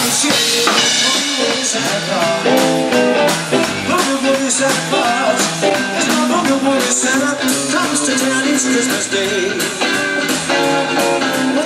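A rock band playing, with electric guitars over a drum kit and a singing voice.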